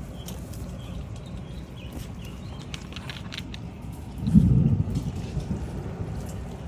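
Thunder rumbling low and steady, swelling into a louder peal about four seconds in that fades away. There are a few light clicks just before it.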